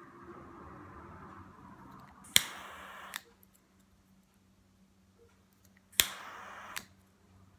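Lighter struck twice to heat a heat-shrink sleeve. Each time there is a sharp ignition click, under a second of gas hiss, and a softer click as it is let go.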